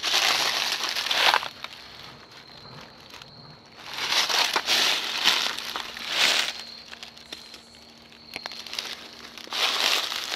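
Footsteps crunching through deep, dry fallen leaves, coming in bursts of several steps with quieter pauses between.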